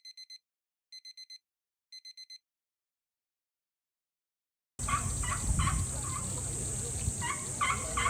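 Three quick runs of four short electronic beeps, a second apart. After a pause of about two seconds, outdoor ambience starts, with a steady high hiss and a call repeated about twice a second.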